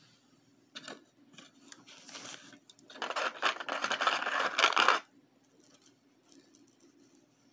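Handling noise of a silver charm bangle and its gift-box packaging: crinkly rustling with light metallic clinks, building to a dense crackling stretch of about two seconds after the middle, then stopping suddenly.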